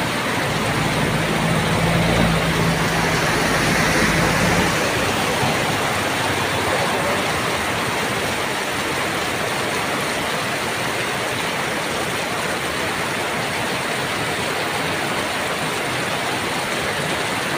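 Heavy rain pouring down steadily, a dense hiss of rain on the street and floodwater. For the first few seconds a vehicle engine drones low underneath, then fades away.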